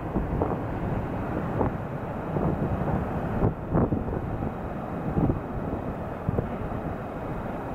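Storm wind buffeting the microphone in irregular gusts, over a continuous low rumble from the storm-driven Atlantic surf.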